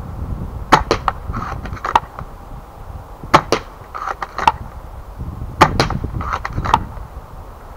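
Novritsch SSG24 spring-powered airsoft sniper rifle, magazine fitted, being worked and fired three times: each round is a pair of sharp snaps followed by a cluster of lighter bolt clicks, about two and a half seconds apart.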